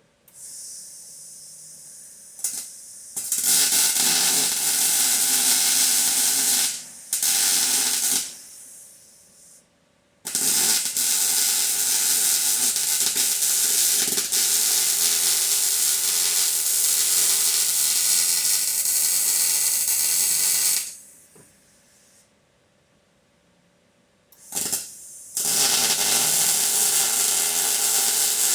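MIG welder laying weld beads, a steady crackling hiss in several runs that start and stop, the longest lasting about ten seconds.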